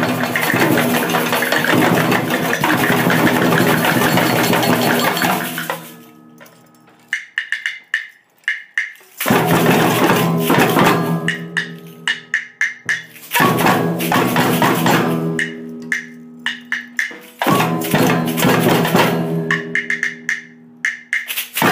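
Samba percussion ensemble playing. The full group drops out about six seconds in, leaving a few sparse strokes, and comes back in about three seconds later. Shorter breaks follow later on.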